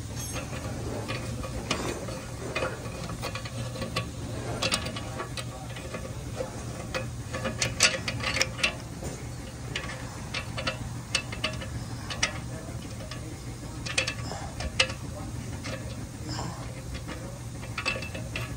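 Irregular light clicks and scrapes of an upstream oxygen sensor being spun out of its threaded exhaust-pipe bung by hand, its wire and connector rattling against the pipe, over a steady low hum.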